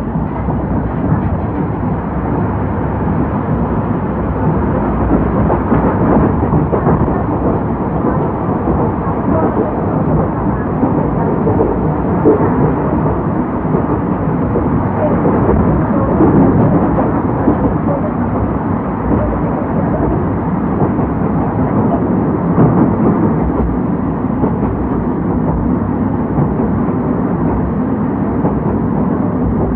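Running noise of a train of old-type passenger coaches hauled by an EF70 electric locomotive: a steady, loud rumble of wheels on rail and car body in motion.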